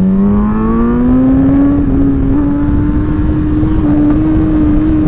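Suzuki GSX-R1000 sport bike's inline-four engine heard on board, accelerating out of a turn: the engine note rises over the first two seconds, then holds steady, with wind rushing over the microphone.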